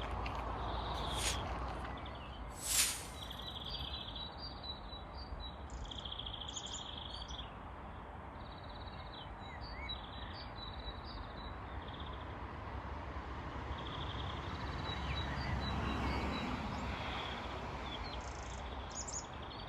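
Forest birds calling: short high chirps, whistles and buzzy trills repeated every second or so, over a steady low background noise. A brief sharp sound about three seconds in, and the low noise swells for a couple of seconds near the end.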